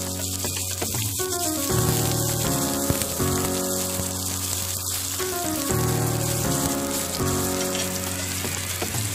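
Chopped onions and garlic sizzling in hot oil in a wok, a steady frying hiss, under background music.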